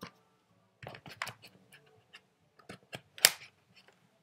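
Small plastic clicks and taps as sickle-shaped screw covers are pressed onto the bezel of an HP Chromebook 11 G4, a handful of short clicks with the loudest, sharpest one about three seconds in.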